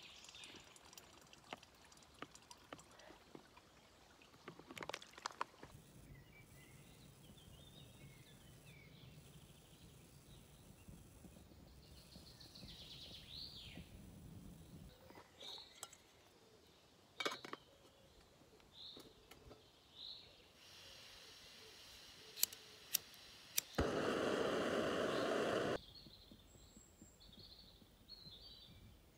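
Quiet woodland ambience with small birds chirping and calling, broken by a few sharp clicks. About 24 seconds in, a loud rushing noise lasts about two seconds, then the quiet woodland background returns.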